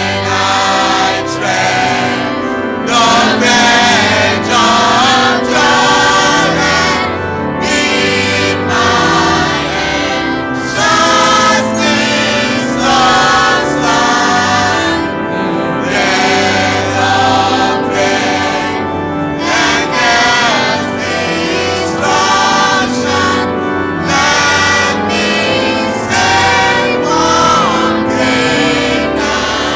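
A church choir singing a gospel song, with organ and steady beat accompaniment.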